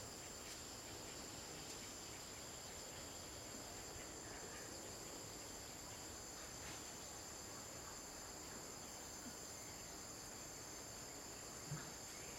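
A faint, steady, high-pitched chorus of insects, unbroken throughout, with one brief low knock near the end.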